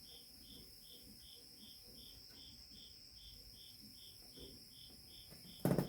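A cricket chirping steadily and faintly, about two to three chirps a second, over a thin steady high whine. Near the end, a sudden loud clatter cuts in.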